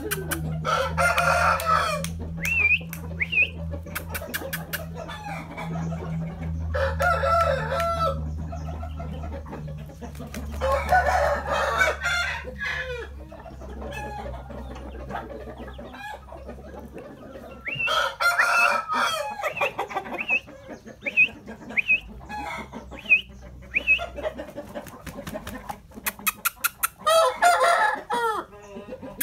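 Shamo rooster crowing five times at even gaps, each crow about a second and a half long, with short high bird chirps in between.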